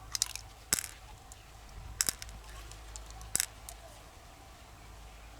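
Hard shells being handled and pried: four sharp clicks and short scrapes, spaced a second or more apart.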